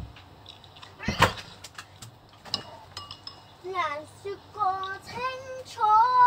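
A spoon clinks once against a dish about a second in, with a few faint ticks after. In the second half a high voice sounds in four short wavering notes that rise and fall in pitch, the loudest sound here.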